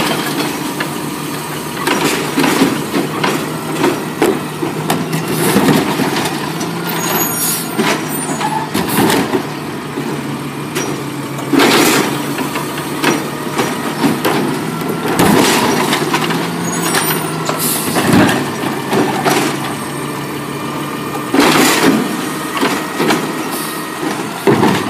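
Automated side-loader garbage truck with a natural-gas engine running steadily while its hydraulic arm dumps two recycling carts into the hopper and lowers them back down, with repeated knocks and clatters of the carts and falling recycling.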